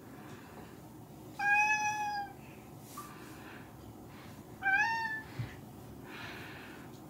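Domestic cat meowing twice close to the microphone: a long, level meow about a second and a half in, then a shorter meow that rises in pitch about three seconds later.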